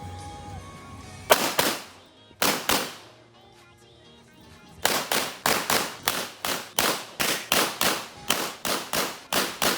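A shot timer's start beep ends, then a string of gunshots from a practical-shooting course: two quick pairs of shots, a pause of about two seconds, then rapid fire of about three shots a second from about five seconds in.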